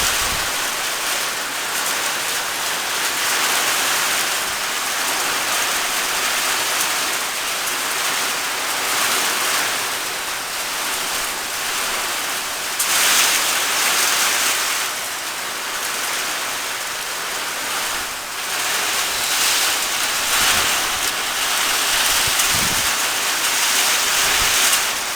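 Rain falling steadily as an even hiss, swelling louder for a couple of seconds about halfway through.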